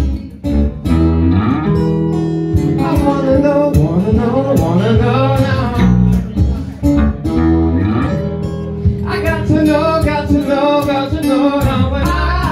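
Live band music: strummed acoustic guitar over bass, with a man singing a phrase about two and a half seconds in and another near the end.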